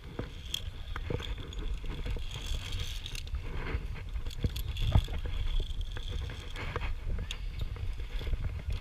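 Metal clicks and scraping of a ropes-course safety trolley and carabiners moving along a steel lifeline cable, with scattered knocks, the loudest about five seconds in, over a low rumble of the body-worn camera being jostled.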